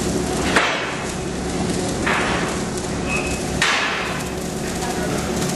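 Metalwork on steel panels from scaffolding: two sharp metal clanks, the first about half a second in and the second about three and a half seconds in, each ringing briefly. There is a softer burst of noise about two seconds in, and steady machinery noise underneath throughout.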